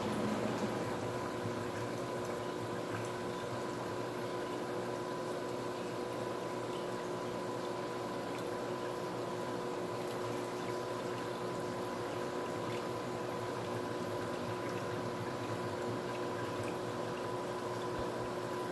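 Reef aquarium running: steady bubbling, trickling water with a constant hum of fixed tones underneath.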